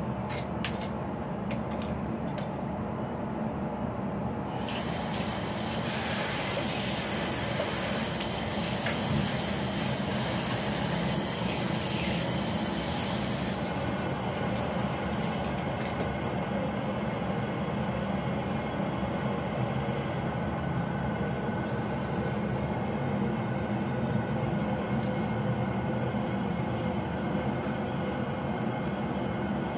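Tap water running into a stainless steel kitchen sink, starting about five seconds in and stopping abruptly about nine seconds later, over a steady low background rumble.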